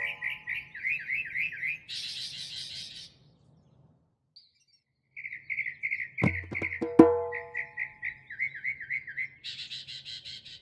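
Logo-sting sound effects: a rapid run of bird chirps, two hollow knocks that ring briefly, then a short rattle. The sequence stops for about two seconds, then plays again.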